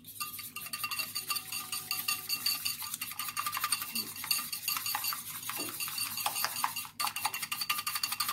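Wire whisk beating eggs in a bowl: fast, steady clicking and rattling of the wires against the bowl, with a brief pause about seven seconds in. The eggs are being beaten smooth for an egg wash.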